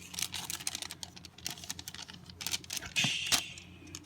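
Trading cards being handled and flipped through in the hand, giving a run of quick, light clicks and taps as card edges knock together, with a short rustle about three seconds in.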